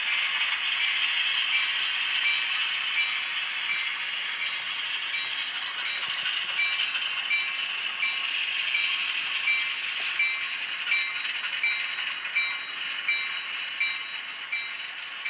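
Sound-equipped HO-scale Atlas Alco RS-11 model locomotive with a TCS WOW decoder, playing steady diesel engine sound through its small speaker. A bell rings over it at about one strike every 0.7 s, louder in the second half.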